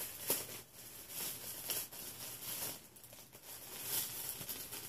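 Irregular rustling and crinkling of packaging and a folded T-shirt being handled and opened.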